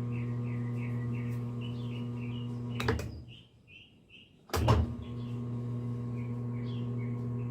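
General Electric top-load washing machine's motor humming steadily in drain-and-spin while the basket does not spin: the motor is heard but the spin fails to engage. The hum cuts out abruptly for over a second in the middle, then comes back with a click.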